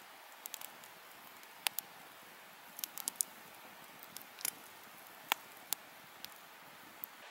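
Small wood campfire crackling: irregular sharp pops and snaps, some coming in quick clusters, over a faint hiss.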